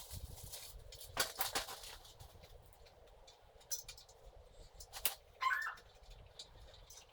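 A few sharp clicks and knocks, and a brief animal call about five and a half seconds in.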